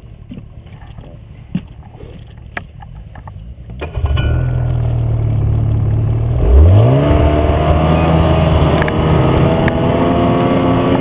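Snowmobile engine: after a few faint clicks, a loud low engine sound cuts in about four seconds in, then the engine revs up with a steep rise in pitch and holds a steady higher drone as the sled pulls away.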